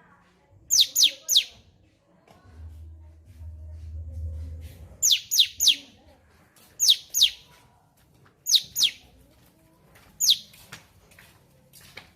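Cucak cungkok calling: short, high, sharply falling whistled notes in clusters of two or three, repeated every couple of seconds. A low rumble runs underneath for a few seconds in the middle.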